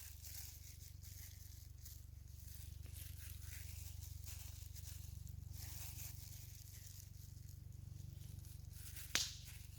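Faint rustling and handling sounds as turkey pieces and peppers are pushed onto a kebab skewer, over a steady low hum. One sharp click comes near the end.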